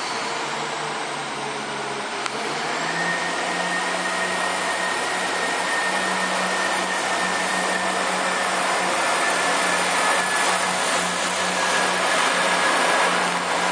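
Irish Rail 22000 Class InterCity diesel railcar pulling away from the platform, its underfloor diesel engines running under power as it gathers speed. A steady low drone and a thin high whine set in about three seconds in, and the sound grows slightly louder.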